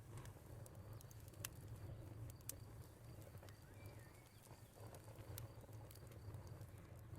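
Wood fire crackling, with sharp snaps every second or so over a low steady rumble. A cricket chirps in an even rhythm behind it, and a bird gives a brief note about four seconds in.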